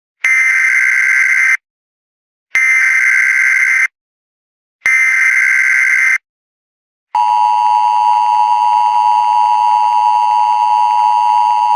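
Emergency Alert System header: three bursts of SAME digital data tones, each about a second and a half long with about a second between them. The steady two-tone EAS attention signal starts about seven seconds in.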